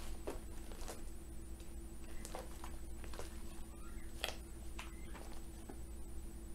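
Sticky slime, softened with lotion, being stretched and kneaded by hand, giving faint irregular clicks and pops, over a steady low hum.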